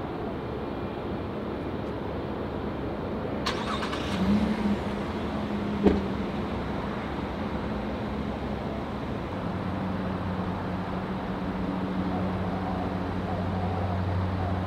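Steady engine rumble, with a low hum that grows stronger in the second half and a sharp knock about six seconds in.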